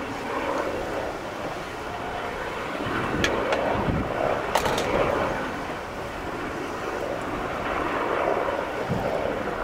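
Aerospatiale Squirrel helicopter hovering with an underslung load on a long line, its turbine and rotor running steadily, with wind noise on the microphone. A few sharp clicks sound around the middle.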